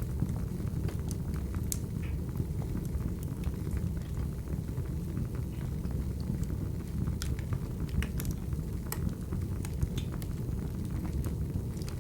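Wood fire crackling from an ASMR recording: a steady low rumble with irregular sharp pops and snaps.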